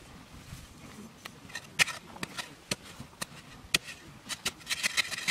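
A digging bar being driven into dry, hard-packed soil in a hole, giving irregular sharp knocks and scrapes that come quicker near the end.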